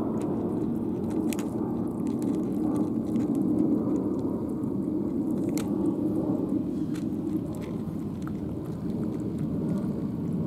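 Two cats chewing and crunching food from bowls, heard as scattered sharp clicks, over a steady low rumble that is louder than the chewing.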